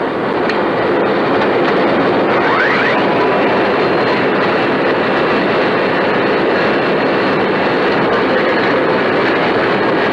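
Steady rushing cockpit noise of a McDonnell Douglas DC-10 as recorded on its cockpit voice recorder, with a faint steady high tone. It fades up over the first second, and a brief faint rising squeak comes about two and a half seconds in.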